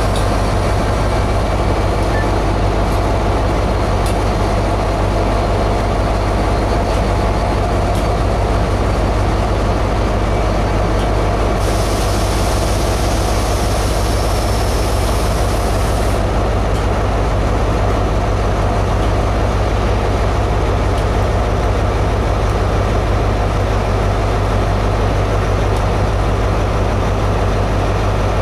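Class 67 diesel locomotive's two-stroke V12 engine running steadily as the engine moves light, with a hiss of air from about 12 to 16 seconds in.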